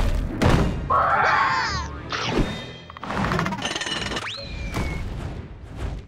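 Cartoon soundtrack of music and sound effects: thuds, a short pitched squeal that bends down about a second in, and a whistle-like tone that rises quickly and then glides down just past four seconds.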